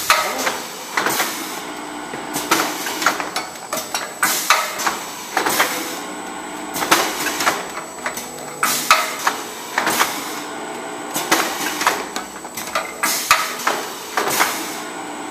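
Automatic packing machine closing shell-shaped plastic cases of tooth powder, its pneumatic actuators clacking with short bursts of air hiss in a repeating cycle about once a second.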